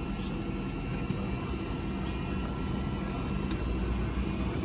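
Cabin noise of a McDonnell Douglas MD-88 taxiing, heard inside the cabin: a steady low rumble from its rear-mounted Pratt & Whitney JT8D engines and the rolling airframe, with faint steady high whines, slowly growing louder.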